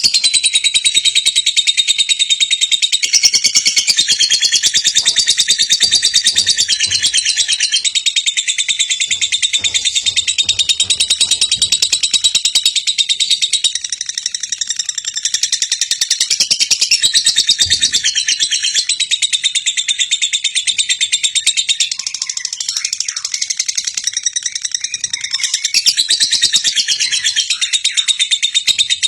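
Lovebird singing in a long, rapid, high-pitched chattering trill that runs without a break, the kind of song played as a lure to set other lovebirds singing.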